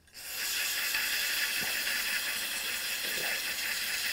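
Aerosol contact cleaner sprayed through its nozzle into an AR-15's barrel extension and chamber: one long, steady hiss, blowing the powder fouling out and down the bore.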